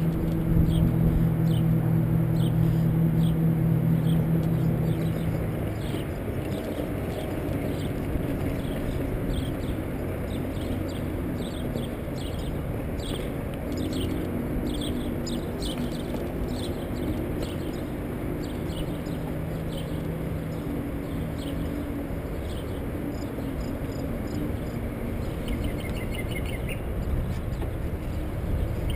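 Small birds chirping again and again over a steady rush of noise from riding along a trail, with an engine hum that fades out about six seconds in.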